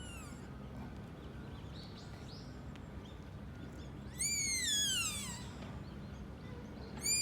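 Sika deer fawn calling: a loud, high-pitched call that falls steadily in pitch over about a second, about four seconds in, with another call starting right at the end.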